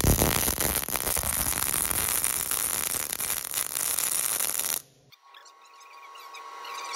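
MIG welding arc burning .035 wire on straight CO2 at about 200 inches per minute and 20 volts. It gives a steady, even crackle: the sound of wire feed speed and voltage in equilibrium, the wire melting off as fast as it is fed. The arc stops abruptly about five seconds in, leaving faint hiss with a thin steady tone.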